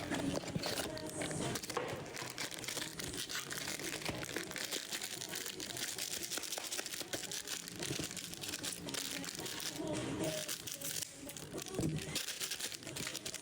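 Foil trading-card pack wrappers crinkling and being torn open by hand.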